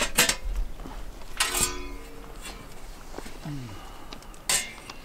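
Metal parts of a homemade plug-together grill housing being slotted together: a few separate clanks, one ringing briefly about a second and a half in, and a sharper knock near the end.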